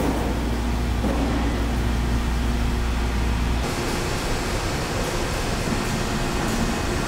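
Steel strip processing line running as sheet steel winds onto a coil: a steady low machine hum under an even mechanical hiss. About three and a half seconds in the hum cuts off, leaving a steady factory hiss.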